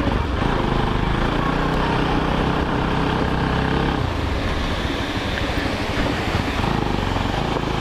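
Motorcycle engine running while riding, under steady wind and road noise on the microphone.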